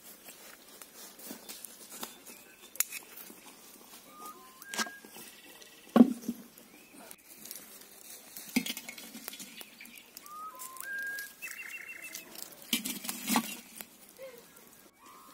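Knocks and clatter of charred logs and embers being set onto a cast-iron pan lid over a wood fire, the loudest knock about six seconds in. Birds chirp with short whistled notes between.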